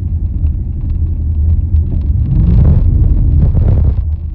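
Small-block Chevy 350 V8 in a 1974 Jeep CJ5, running on a newly installed Sniper EFI fuel-injection unit while driving: a steady low rumble that swells as the engine pulls harder about halfway through, then eases back near the end.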